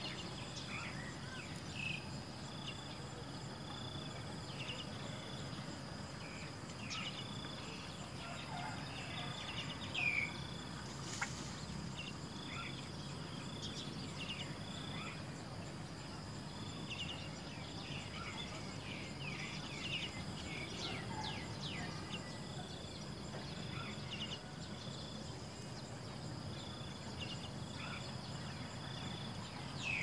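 Outdoor insect chorus: one high, steady insect drone, with a second insect trill that starts and stops every second or two. Short, high, falling bird chirps come scattered throughout, thickest in the middle, and there is one light click about eleven seconds in.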